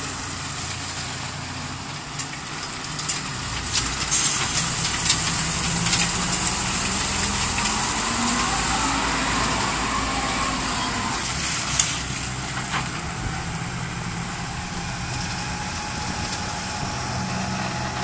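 Self-loading concrete mixer's diesel engine running as the machine drives and manoeuvres, louder for several seconds in the middle, with scattered knocks and clanks.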